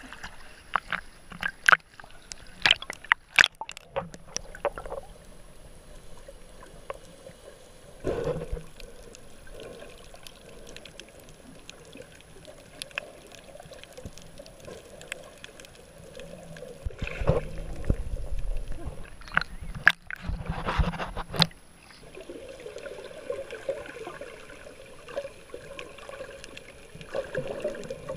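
Muffled water sloshing and bubbling, heard underwater, with a run of sharp splashes in the first few seconds and louder surges of splashing about 8 seconds in and again from about 17 to 21 seconds.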